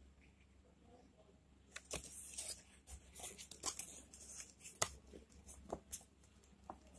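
Folded paper flaps being opened by hand: a run of crackling paper rustles and sharp crinkles that starts about two seconds in and dies away after about four seconds, with one louder snap near the middle.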